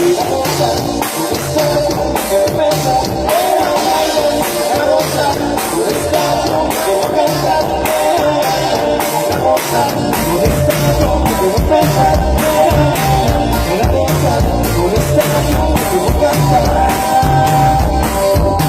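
Live band playing through a sound check: a steady, evenly spaced drumbeat under pitched instrument lines, with the bass and low drums coming in much louder about halfway through.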